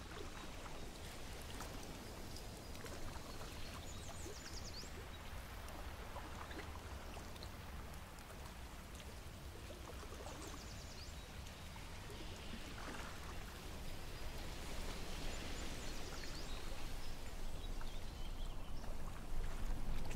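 Lakeshore ambience: small waves lapping, with wind rumbling on the microphone and a few short high chirps. It grows louder over the last few seconds.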